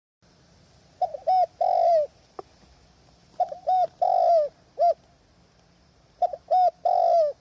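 Spotted dove cooing: three repeated phrases, each of two short coos, a longer drawn coo and a short closing note, about every two and a half seconds. A single faint click comes between the first two phrases.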